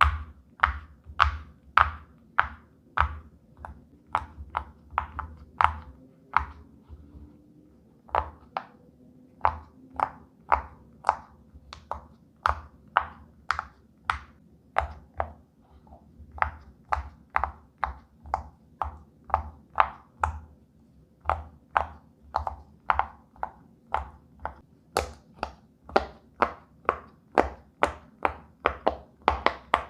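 Silicone pop-it fidget toy bubbles being pressed down one after another, each giving a short sharp pop, about two a second, with a brief pause about seven seconds in.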